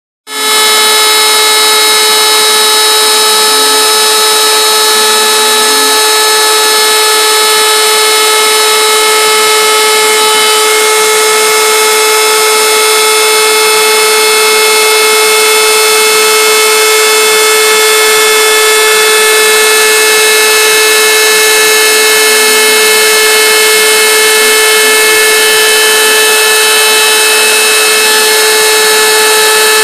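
Spindle of a DIY CNC router running at speed while engraving, a loud steady high-pitched whine over a constant hiss. Fainter lower tones step up and down in pitch now and then.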